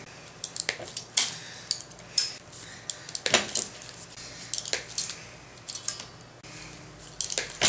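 Hand crimping tool clicking and clanking as it closes on solderless terminals on motor wires, with metal tools clinking on the bench. The clicks are sharp and come irregularly; the loudest is a little over three seconds in.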